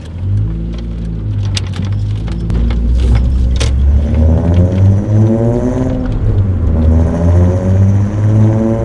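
Volkswagen Corrado VR6 engine and decat exhaust accelerating hard: the revs climb, drop at a gear change about six seconds in, then climb again.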